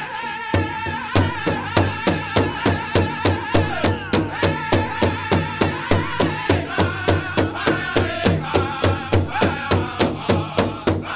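Pow wow drum group singing a chicken dance song around a large shared bass drum. The singing comes first without the drum, then the drumbeat comes in about half a second in and keeps a steady pulse of roughly three beats a second.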